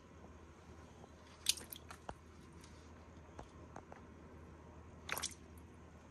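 A snapping turtle biting into a strip of raw meat held in metal tongs: wet, squishy bites with a few sharp clicks, the loudest about a second and a half in and a quick cluster about five seconds in.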